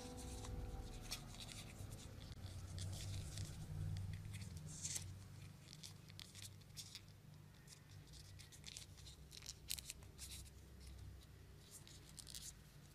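Faint crinkling and rustling of origami paper as fingers fold and pinch it into creases, heard as short, scattered crackles over a low steady hum. The crackling starts as background music fades out in the first second.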